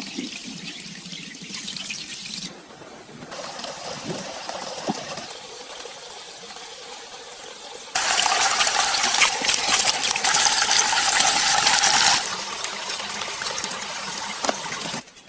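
Water pouring and splashing, in several sections that cut in and out abruptly, loudest for about four seconds past the middle.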